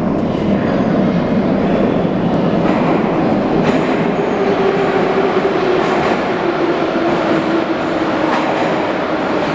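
An 81-717.5 metro train approaching along the track into the station, with a steady rumble of wheels on rails. Midway a held whine comes in and sinks slightly in pitch.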